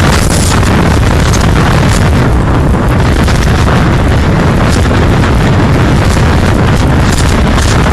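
Strong wind buffeting the microphone: a loud, steady low rumble with crackling gusts.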